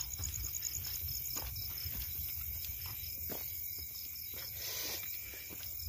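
Crickets chirping in a rapid, even pulse, with footsteps through grass and scrub.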